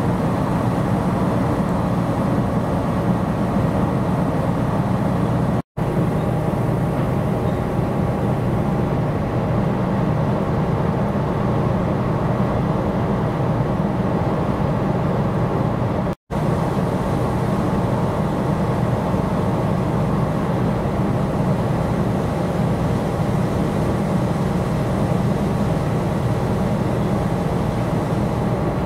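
Steady low drone of a small coastal cargo ship's diesel engine under way, with a few steady hum tones over it. The sound cuts out for an instant twice.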